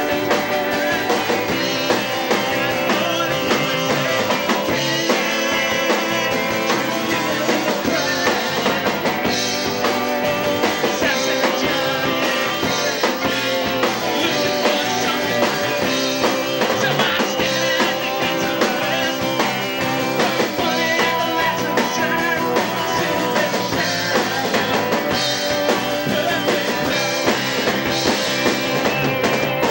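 A rock band playing live, loud and without a break: electric guitars, bass guitar and drum kit, with a man singing into the microphone.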